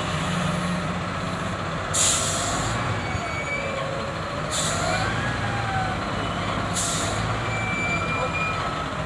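Diesel engines of heavy machinery running steadily, with three short hisses of released air about two, four and a half and seven seconds in.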